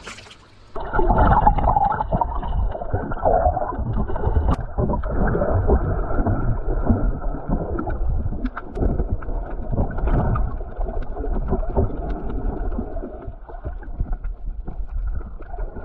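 Muffled, churning water sounds with irregular surges, starting abruptly about a second in: a person moving through water, heard with the microphone at or under the water's surface.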